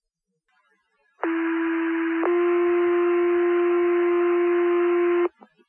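Two-tone sequential fire-pager tone-out over the dispatch radio: one steady tone held about a second, then a slightly higher tone held about three seconds, cutting off sharply. It is the alert that sets off the volunteer firefighters' pagers ahead of the repeat page.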